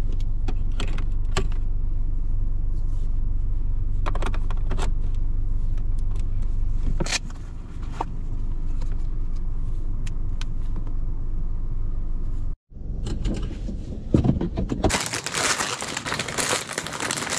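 Steady low rumble inside a car cabin with a few light clicks. Near the end, after a break, plastic packaging crinkles loudly as a hand rummages through a box.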